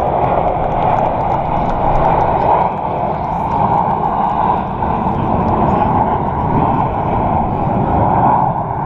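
Blue Angels F/A-18 jet flying past low over the airfield: loud, steady jet engine noise with no clear pitch.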